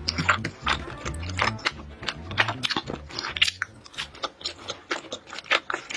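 Close-miked chewing of soy sauce beef and rice cakes: an irregular run of many short, sharp mouth clicks, under quiet background music.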